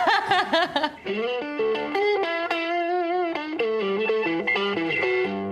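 Electric guitar with distortion playing a blues lick: single notes, some bent and held with vibrato.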